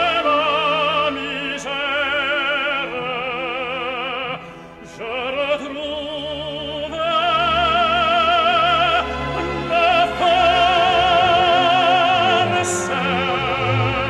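Operatic tenor singing in French over an orchestra, holding long notes with a wide vibrato. There is a short break between phrases about five seconds in.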